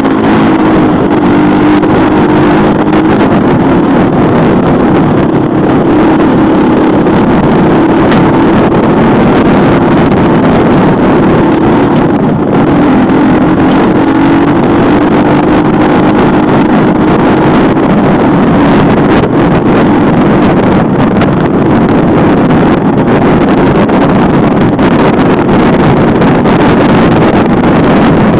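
Baja SSR200 dirt bike engine running loud and steady while riding a woodland trail, its pitch wavering a little as the throttle changes.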